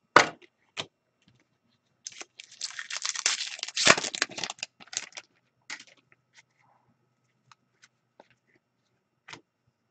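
A trading-card pack wrapper being torn open and crinkled, a dense crackling that starts about two seconds in and lasts around three seconds, followed by a few light clicks as the cards are handled.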